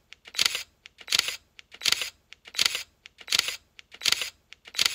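Camera shutter firing again and again, a sharp click about every three quarters of a second with a fainter click between.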